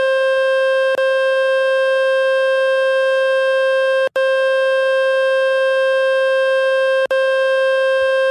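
Speaker-cleaning tone from the Fix My Speaker website: a loud, steady, buzzy mid-pitched tone played to shake dust and water out of a phone's loudspeaker. It breaks off for an instant three times, about one, four and seven seconds in, and stops abruptly at the end.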